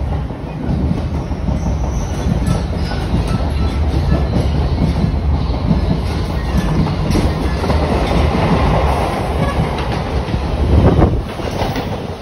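Passenger train running, the noise of its wheels on the track heard through an open coach door, with a louder swell about eleven seconds in.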